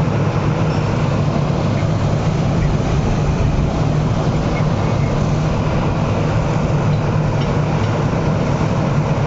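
Drilling rig's heavy engine machinery running: a loud, steady low drone with a constant hum.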